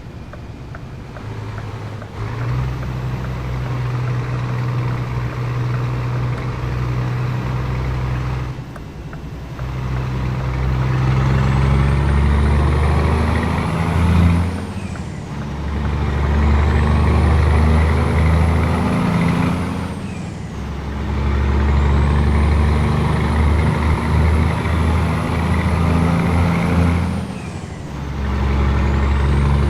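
Scania 500S truck's straight-piped 13-litre inline-six diesel, loud under load, accelerating and shifting up through the gears. The engine note breaks and drops four times at the shifts, and a high whistle rises between them and falls away at each shift.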